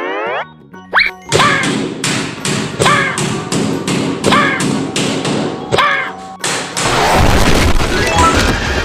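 Cartoon-style sound effects: a rising sweep at the start, then a steady run of thumps about three a second with a short rising chirp every few beats, turning into a loud noisy rumble near the end.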